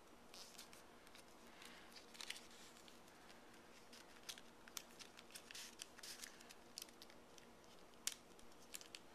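A square of origami paper being handled and folded into a kite fold: faint, irregular crisp rustles and clicks as the paper is moved and creased by hand.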